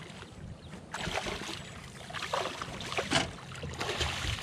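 A hooked striped bass thrashing and splashing at the water's surface beside the boat as it is brought in. The splashes come irregularly, several in all, the loudest about three seconds in.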